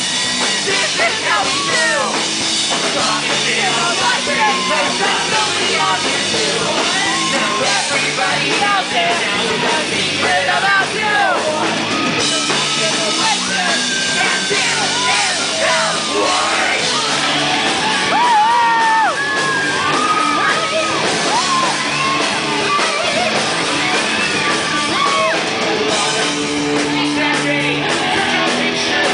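Live rock band playing loudly, with a singer yelling and singing over electric guitars and drums.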